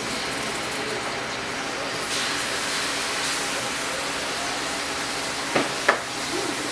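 Raw chicken pieces sizzling in a hot wok on a gas stove, a steady hiss that brightens about two seconds in. Two sharp utensil knocks come close together near the end.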